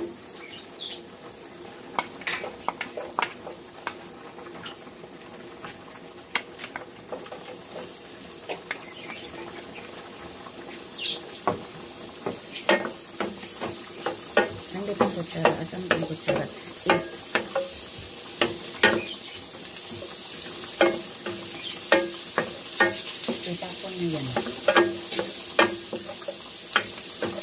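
Chopped garlic and onion sizzling in melted margarine in a square nonstick pan, with a wooden spatula stirring and knocking against the pan many times. The sizzle grows louder over the second half.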